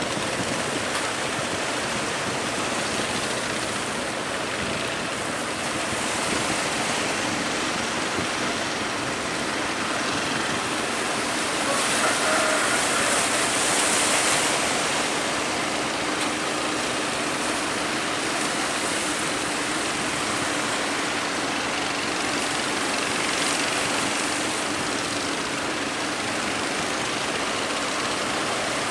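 Sea water rushing and splashing against a ship's hull over the steady low hum of its engine, with a louder surge of spray about twelve seconds in.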